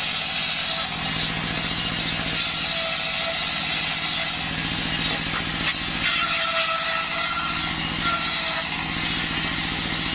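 Stationary single-cylinder diesel engine chugging steadily as it belt-drives a large circular saw blade ripping a plank of waru timber, with a rasping cutting hiss. A higher whine from the blade comes and goes, about two and a half seconds in and again from about six to eight and a half seconds.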